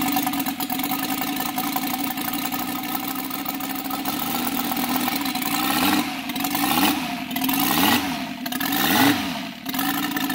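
UMS 125cc five-cylinder four-stroke radial model-aircraft engine running and driving its propeller, a steady drone for the first half. From about six seconds in, the sound wavers and swells and dips roughly once a second.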